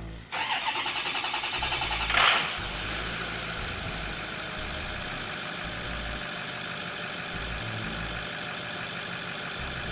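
A 6.0L Power Stroke V8 diesel being cranked by its starter for about two seconds, with a rhythmic cranking pulse. It catches with a brief flare and settles into a steady idle. It starts and runs now that its failed high-pressure oil pump and IPR valve have been replaced, curing the no-start.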